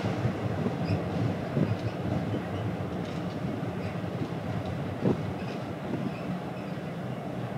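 Steady low rumble of a car ferry underway, heard on its deck: engine drone and hull vibration, with two brief knocks about one and a half and five seconds in.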